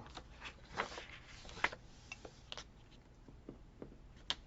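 Paper and sticker sheets being handled on a desk: faint rustles with a few light taps and clicks.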